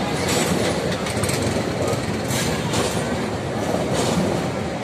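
Passenger coaches of an Indonesian KAI train rolling past at close range: a steady rumble of wheels on rail, with a brighter hissing surge about once a second.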